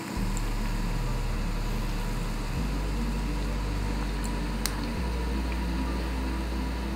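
A steady low mechanical hum starts suddenly and changes tone twice, fading near the end.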